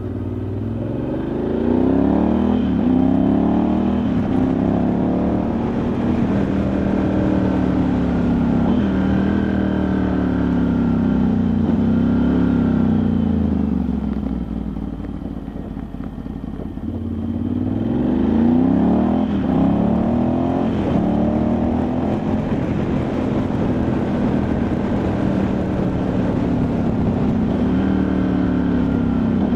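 Ducati Multistrada 1100S's air-cooled L-twin engine running loud under way, its pitch rising and falling in repeated sweeps as the revs climb and drop. About halfway through it eases off for a few seconds, then pulls up again.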